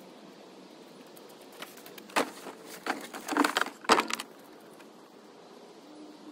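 Junk being loaded onto a trailer: a cluster of clattering knocks and rattles from about two to four seconds in, the loudest near two and near four seconds.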